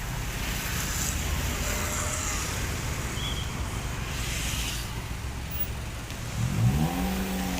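Steady road-traffic rumble. About six seconds in, a tour bus's 'basuri' telolet musical horn starts, its pitch gliding up and then holding.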